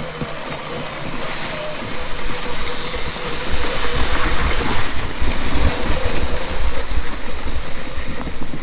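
GB Moto 36-volt electric kids' ATV driving through snow: a faint steady motor whine under a loud rushing noise and low rumble, which grows a little louder after about two seconds.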